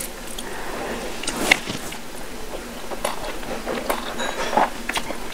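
Close-miked eating sounds: fingers squishing rice mixed with fried fish, and wet chewing of a mouthful with sharp mouth clicks and smacks scattered through, the loudest about a second and a half in.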